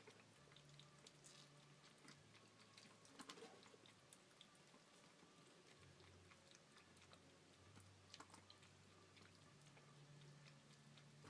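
Kittens lapping at water: faint, scattered wet clicks and ticks, a little stronger about three seconds in and again around eight seconds, over a low steady hum.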